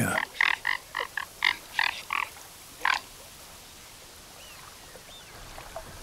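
A string of about eight short animal calls, three or four a second, then one more call about three seconds in, followed by only a faint steady background.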